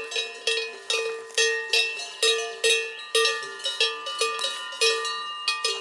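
Large cowbell on a grazing cow clanking in an uneven rhythm, a few strikes a second, each strike ringing on and dying away before the next.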